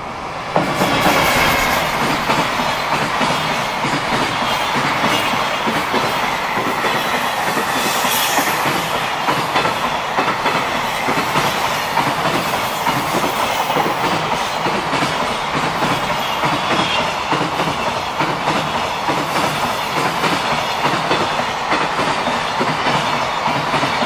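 A JR Freight EF210 electric locomotive goes by close at speed, its sound jumping up sharply about half a second in. A long string of container wagons follows, clattering steadily over the rail joints.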